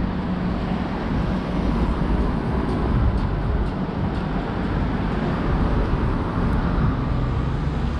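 Steady outdoor street background noise: an even low rumble with no distinct events.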